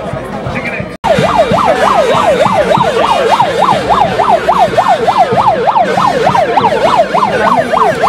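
Murmur of crowd voices for about a second, then after an abrupt cut an electronic siren in a fast yelp, its pitch sweeping up and down about three times a second.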